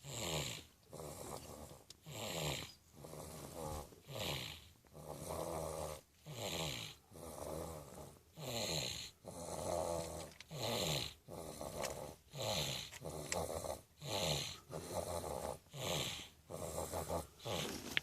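Steady, rhythmic snoring in sleep, with a louder snore about every two seconds and a softer breath between.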